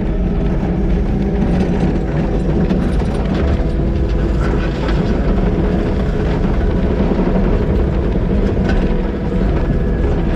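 Komatsu D51PX-22 crawler dozer's diesel engine running steadily under work, with a few light clanks.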